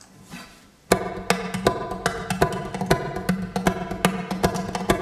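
Acoustic guitar strummed in a rhythmic, percussive style. Sharp, clicky hits land about two to three times a second over a ringing chord, starting suddenly about a second in after a faint hiss.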